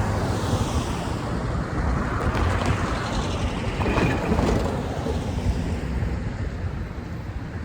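Train going by close at hand: a steady rumble of wheels on rail, with wind buffeting the microphone.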